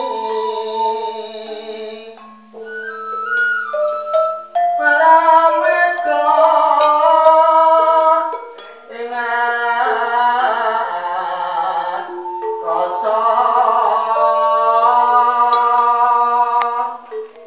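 Javanese gamelan ensemble playing: bronze metallophone keys ringing in held tones under a singing voice that comes in phrases, with short breaks between them.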